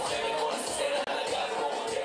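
Music playing, with held melodic lines and a steady level.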